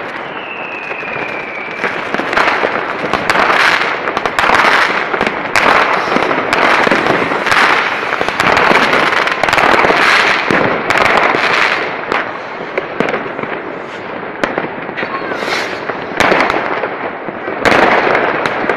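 Many fireworks going off at once: a dense, unbroken run of bangs and crackling. A high whistle, falling slightly in pitch, sounds through the first two seconds.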